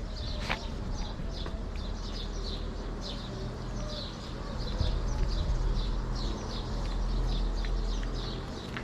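Small birds chirping over and over, several short high chirps a second, over a steady low rumble.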